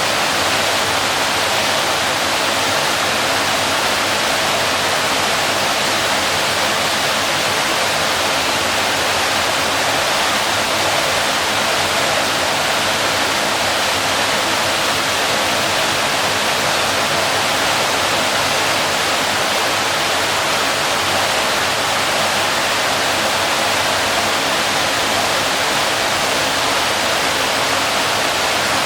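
Waterfall: a steady, unchanging rush of falling water, a loud hiss-like roar with little deep rumble.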